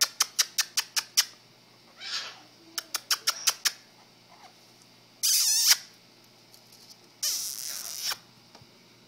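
Pet parrots calling: two quick runs of sharp clicks, about five a second, then two loud, harsh squawks, each under a second long.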